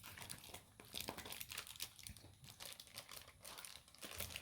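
Faint crinkling of takeout food packaging being handled, a run of small irregular crackles.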